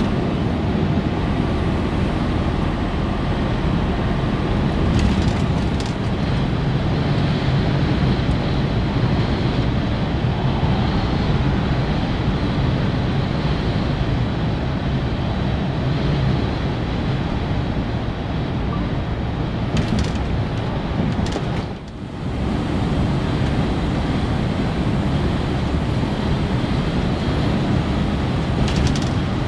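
DAF XG+ truck cruising at motorway speed, heard from inside the cab: a steady engine drone under tyre and wind noise, with a few faint clicks and a brief dip in level about two-thirds of the way through.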